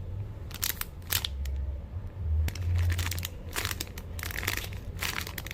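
Hands handling a squishy toy and its tag: irregular soft clicks, crinkles and rustles over a low rumble.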